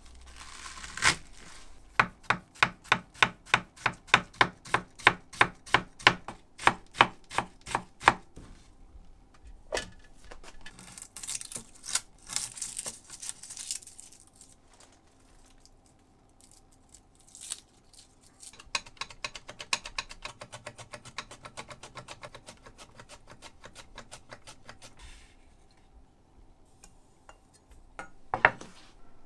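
Kitchen knife cutting garlic cloves on a wooden cutting board. First come sharp, even strokes, about two or three a second, then a scratchy stretch, then quicker, lighter slicing strokes as the cloves are cut thin. A single knock near the end.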